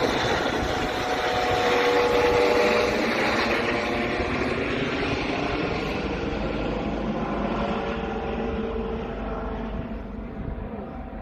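Air ambulance helicopter flying overhead and away: its rotor and turbine noise, with a steady whine in it, is loudest early and then fades and turns duller as it recedes.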